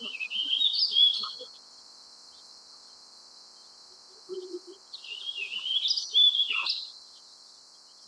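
Warbling vireo singing: two fast, rambling warbled phrases, a short one at the start and a longer one about five seconds in.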